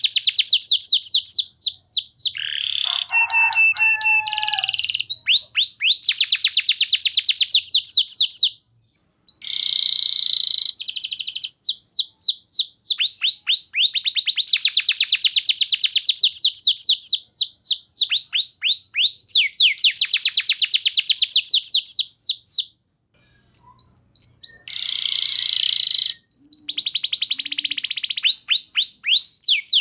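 Domestic canary singing long, rapid trills of repeated falling notes, with a few brief pauses between phrases.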